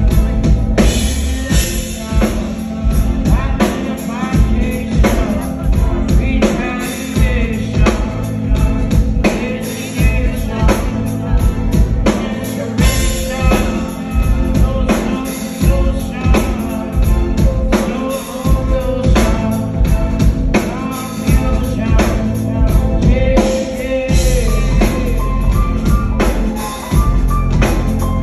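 Live band music: a male singer singing into a microphone over a drum kit keeping a steady beat, with a heavy low end.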